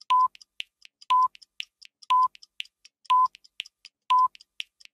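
Game-show countdown timer sound effect: a short electronic beep once a second, five times, with lighter ticks in between, marking the seconds left to answer.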